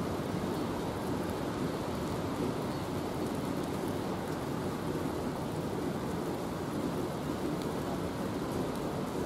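Steady, somewhat heavy rain from a summer thunderstorm: an even, unbroken hiss.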